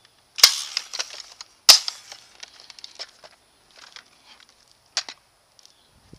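Spring-powered airsoft rifle firing two sharp shots about a second and a quarter apart, followed by lighter scattered clicks.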